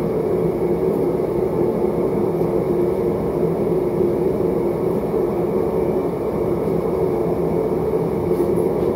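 Propane gas forge running: a steady, even burner rush.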